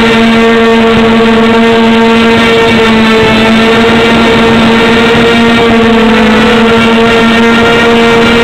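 Small 250 mm quadcopter's electric motors and propellers running steadily in hover, heard from the onboard camera as a loud, even buzzing whine with a strong steady pitch. The pitch wavers slightly about six seconds in.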